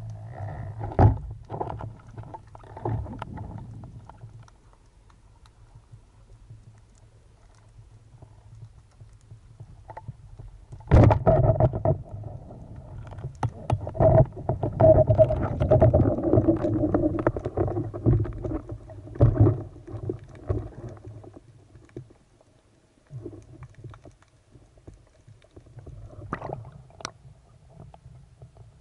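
Muffled underwater sound of a diving camera: water sloshing and gurgling against the housing, with scattered knocks and clicks. It is busiest from about a third of the way in to about two thirds of the way through.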